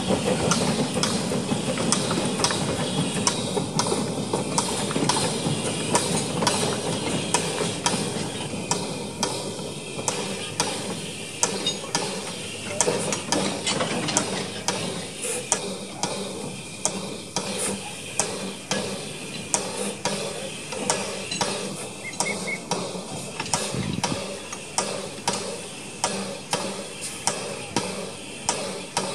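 Narrow-gauge steam locomotive Elf, with a steady hiss of steam and a regular light clicking from its machinery at about two clicks a second. The hiss is stronger for the first ten seconds or so, leaving the clicking more prominent after that.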